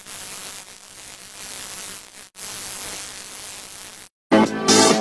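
A static-like hiss swelling and fading unevenly, cutting out for an instant about two seconds in. Near the end it breaks off into a moment of silence and loud electronic dance music with a pounding beat starts.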